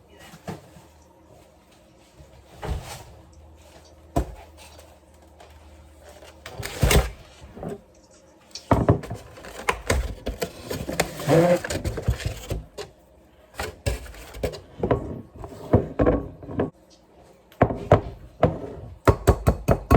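Kitchen handling sounds: a string of separate knocks and clatters as things are taken out and set down, with a busier stretch of clatter in the middle.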